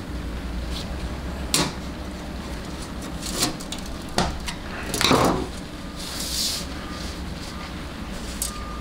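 A flat-blade screwdriver seating small steel retaining rings into the grooves of check-ball repair sleeves in a steel transmission separator plate: a handful of sharp metallic clicks and a short scrape, spaced a second or so apart.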